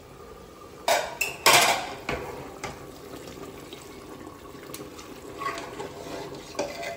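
Metal ladle and spatula clanking against an aluminium pressure cooker, with two loud clatters about a second in, then light scrapes and clinks as the mutton is stirred through its watery gravy, which is being cooked down uncovered.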